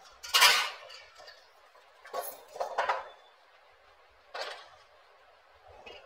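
Sheet-metal ceiling fan blades clattering and clanking against the fan's metal body as they are handled, in three bouts: the loudest less than a second in, a longer one a little after two seconds, and a short one past four seconds.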